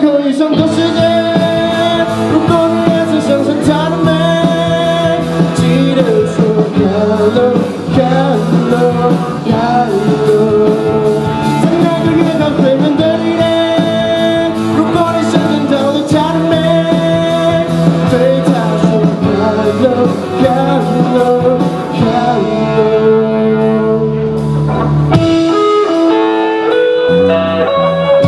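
Live rock band with electric guitars, bass guitar and drums playing an instrumental break, a lead melody line with pitch bends over the bass and drums, changing to held chords about twenty-two seconds in.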